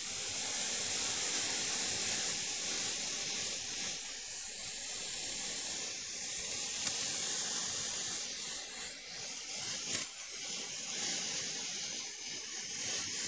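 Steady rushing hiss of blown air, strongest in the high treble, swelling up from quiet as it starts and then holding even.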